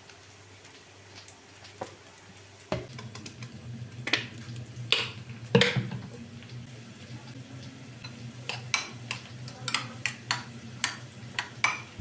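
A metal spoon stirring sauce in a ceramic bowl, clinking against its sides in short repeated clicks from about two-thirds of the way in. Before that come a few knocks around the middle, over a low steady hum that starts after about three seconds.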